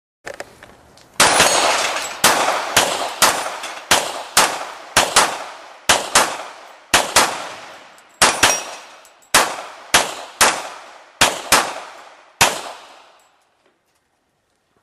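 Rapid gunfire at steel plate targets: a string of about two dozen shots, some only a fraction of a second apart, each followed by a short ringing tail. The shooting stops about twelve and a half seconds in.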